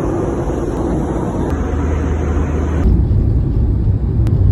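Loud, steady rumble of a moving vehicle, with an abrupt change in the sound about three seconds in.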